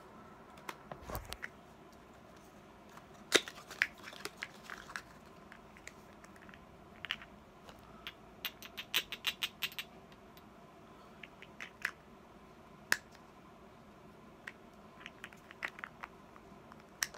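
Scattered clicks, taps and small knocks of objects being handled close to the microphone, with a soft thump about a second in and a quick run of a dozen or so clicks around nine seconds in.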